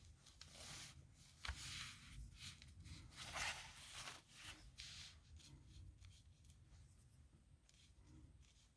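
A pen scratching on paper in a series of short handwriting strokes, busiest in the first half and then lighter and sparser.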